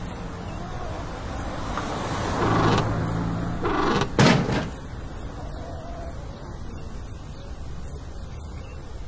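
A car working its rear wheel against a rag wrapped round the tyre at a concrete ledge: a rushing noise over a low hum swells twice, then one loud thump about four seconds in.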